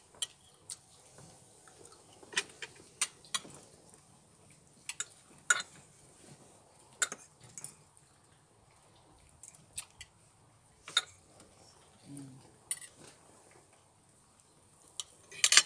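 Cutlery clinking and scraping on plates during a meal: scattered single sharp clinks every second or two, with a quick cluster of them near the end.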